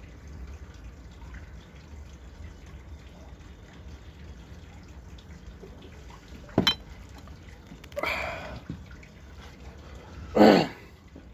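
A man finishing a glass of neat whisky. A sharp glass clink comes about six and a half seconds in, then a breathy exhale, then a loud throaty sound from the drinker near the end.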